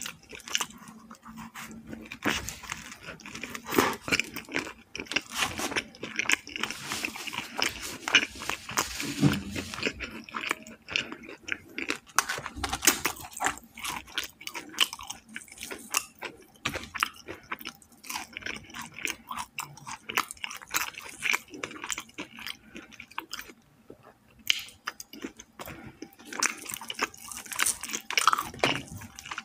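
Close-miked eating of fried chicken: a run of crunchy bites and chewing, irregular crackles with a short lull about two-thirds of the way through.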